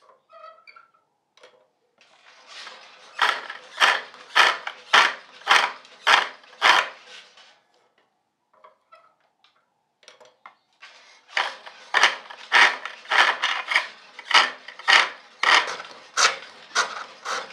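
Spring pole lathe turning a wooden chair-leg blank: a turning gouge cuts in rhythmic strokes, about two a second, as the work spins back and forth, with a pause of a few seconds midway. The blank is being roughed from an octagon down to a round cylinder.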